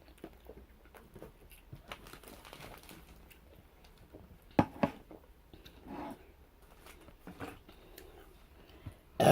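Quiet mouth and food-handling noises of eating, with two sharp clicks about four and a half seconds in, then one short loud burp near the end.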